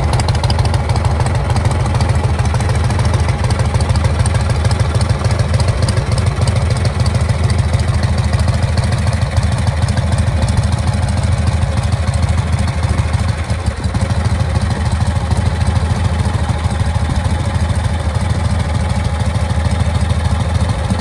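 1947 Harley-Davidson Knucklehead's V-twin engine idling steadily, a loud, even low-pitched beat from its exhaust.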